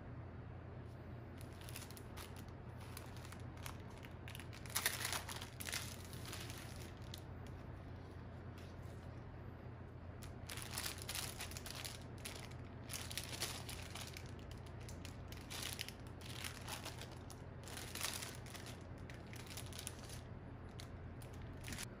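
Clear plastic packaging crinkling in irregular bursts as sticker sheets and paper craft pieces are handled, loudest about five seconds in, over a faint steady low hum.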